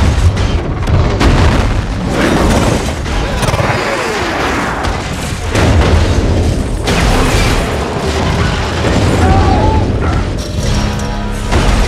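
Film sound effects of a bullet train crashing: continuous heavy booming rumble with crashing and smashing of metal carriage walls, over a loud music score.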